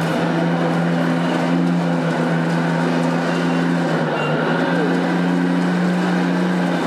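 Remote-control model vehicle's electric motor and gearing running at a steady pitch with a constant hum and whine, under a rougher mechanical noise.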